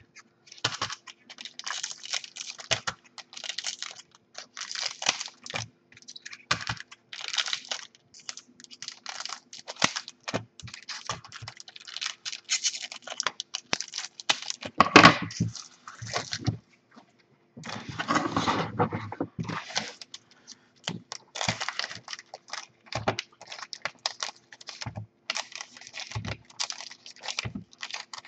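Scissors snipping open foil trading-card packs, with the crinkle and rustle of the foil wrappers being handled and stacked: many short dry snips and crackles, one sharper snap past the middle and a longer, louder rustle soon after.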